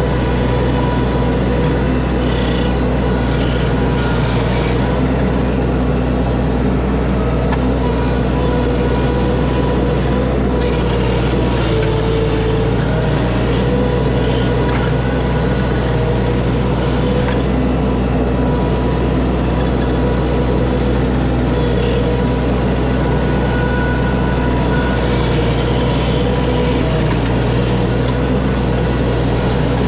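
Diesel engine of heavy equipment running steadily, its pitch shifting briefly about twelve seconds in.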